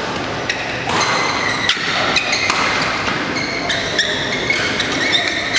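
Badminton rally on an indoor court: several sharp racket strikes on the shuttlecock, a second or so apart, with sneakers squeaking on the court floor between them.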